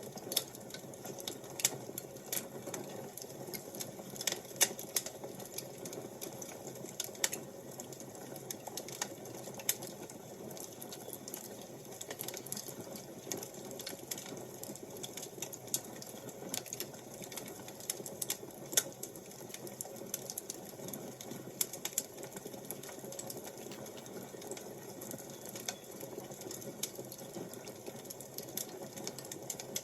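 Wood fire crackling: irregular sharp pops and snaps, several a second, over a steady low hiss.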